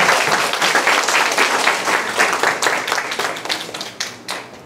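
Audience applauding, a dense patter of claps that tapers off toward the end.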